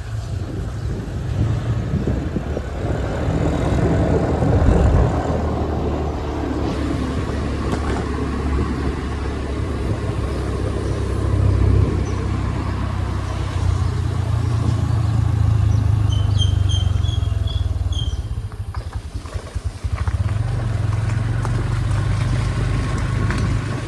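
A motor vehicle running steadily, a low engine drone with road and wind noise. About two-thirds through there is a brief row of about five high chirps.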